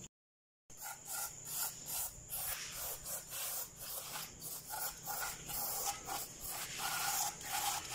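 Aerosol spray can with a straw nozzle spraying onto a diesel injection pump's gear and housing. It hisses in short repeated bursts, a few a second.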